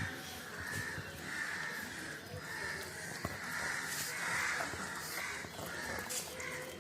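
Crows cawing, a quick string of short caws, with a single sharp click about three seconds in.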